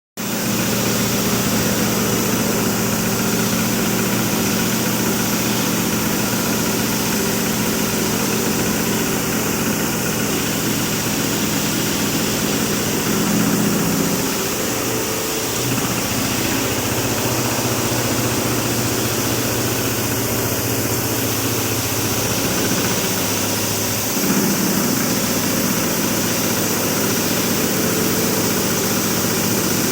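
Large CNC machine running, a steady mechanical hum over noise whose low pitch shifts about 13 seconds in and shifts back about 24 seconds in.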